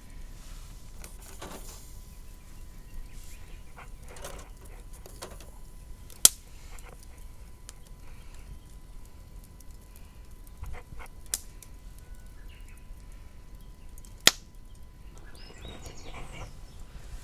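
Three sharp single cracks a few seconds apart, the loudest sounds here, over a low steady outdoor background, with faint bird calls near the end.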